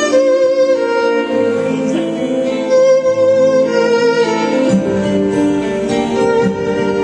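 Live instrumental ensemble music: a violin plays held, wavering melody notes over guitar, and a low bass part comes in about two-thirds of the way through.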